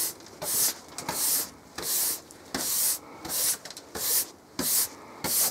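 Hand brush sweeping dust off a workbench top, about ten quick swishing strokes, roughly two a second.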